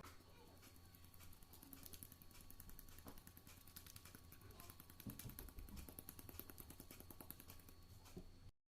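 Near silence: a low steady hum with many faint quick clicks and crackles and a few soft knocks, cutting off abruptly near the end.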